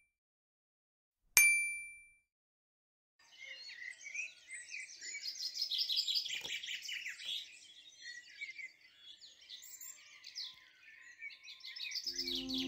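A single bright chime rings about a second in and fades within a second. From about three seconds in, many birds chirp and sing without pause, and soft music comes in near the end.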